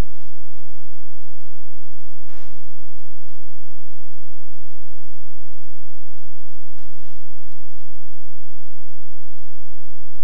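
Loud, steady electrical mains hum and buzz on the audio feed, a stack of unchanging tones with no voice heard through it. Two brief hiss bursts come about two seconds in and again about seven seconds in.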